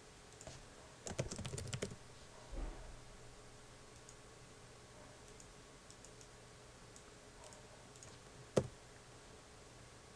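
Typing on a computer keyboard: a quick run of about eight keystrokes about a second in, followed by a soft low thump. Faint scattered clicks follow, with one sharper single click near the end.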